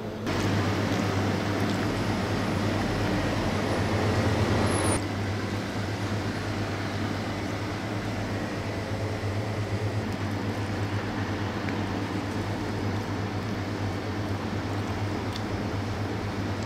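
Steady hum and hiss of room ambience, with a constant low machine hum under an even noise. It is louder for about the first five seconds, then drops suddenly to a lower steady level.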